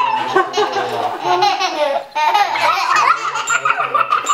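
Two toddlers laughing together in repeated high-pitched peals, with a brief pause about two seconds in.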